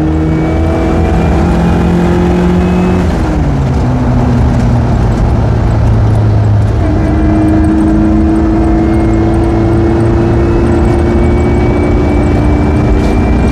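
Suzuki Sierra under way, engine note climbing slowly with road noise beneath. The pitch drops at a gear change about three seconds in, then climbs again from about seven seconds.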